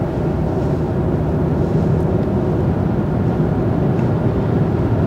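Steady in-cabin driving noise of a 2024 Range Rover Sport P360 at highway speed: low road and tyre rumble with wind noise, as the car picks up from about 80 to 90 km/h.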